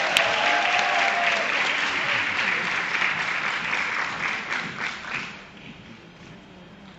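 Audience applauding a graduate crossing the stage. The clapping dies away about five seconds in.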